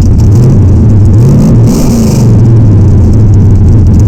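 A vehicle's engine running loud, its pitch rising briefly about a second in as it revs, with a short burst of hiss about two seconds in.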